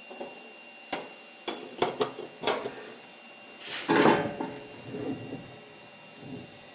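Metal clinks and knocks from a Feuerhand Baby Special 276 hurricane lantern being handled: a handful of sharp clicks in the first three seconds, then a louder rattling clatter about four seconds in and a few softer knocks after.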